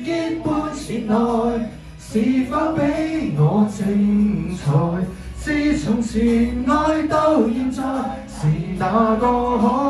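A man singing karaoke through a microphone and speakers over a backing track: a sung melody with several long held notes.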